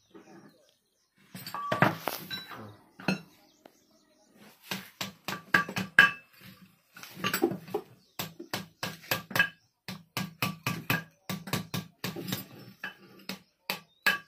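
Hammer striking metal on the hub of a Kubota harvester's belt tension pulley, quick repeated blows each with a short metallic ring. There is a louder clattering knock about two seconds in, then steady blows about three a second from about five seconds in.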